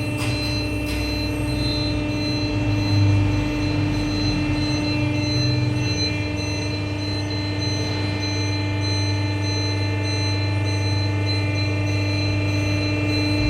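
Factory machinery running steadily: a constant low hum with several steady whining tones over it.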